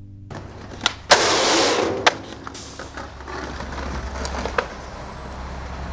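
Raw street skateboarding sound: a few sharp board clacks, then a loud scraping burst lasting under a second about a second in, over the rumble of urethane wheels rolling on concrete and a steady low hum.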